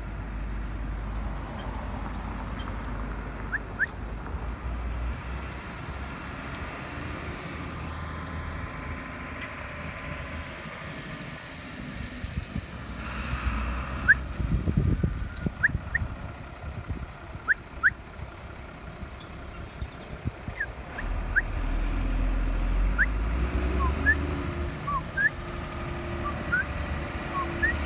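Outdoor ambience: a steady low rumble of road traffic, with scattered short, high bird chirps and a few thumps about halfway through.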